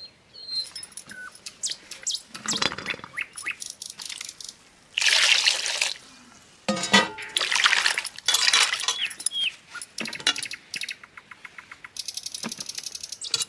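Short rasping strokes of a peeler scraping the skin off pointed gourd (parwal), then whole parwal and tomatoes sizzling in hot oil in a kadai in two stretches, then a fast run of even scraping strokes as parwal is worked against a curved floor blade near the end. Birds chirp in the background.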